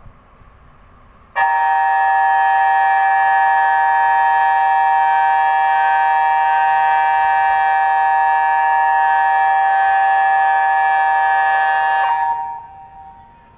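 InaTEWS tsunami early-warning siren sounding a test signal: a loud, steady tone that holds one pitch without rising or falling. It starts just over a second in, lasts about eleven seconds, then stops and fades out over about a second.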